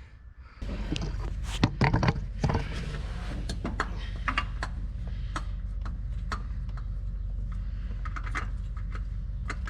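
A steady low hum starts about half a second in, with scattered clicks and light knocks over it, as of hand tools and parts being handled during a truck oil change.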